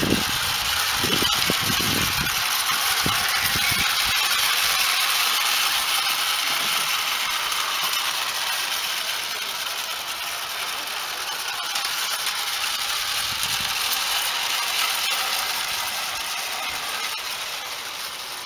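Small model train running along garden railway track: the steady running noise of its wheels and mechanism on the rails, growing quieter toward the end as it draws away.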